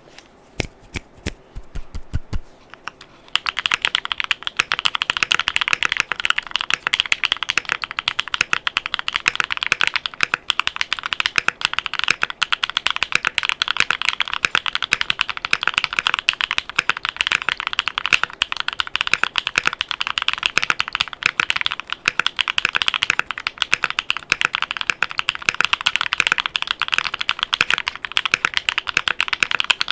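Mechanical keyboard being typed on: a Qwertykeys Neo65 Cu with Duhuk Lumia Bitter Tea V2 tactile switches, a carbon fibre plate and double-shot ABS Cherry-profile keycaps. A few separate low knocks come in the first two seconds, then continuous rapid typing from about three seconds in.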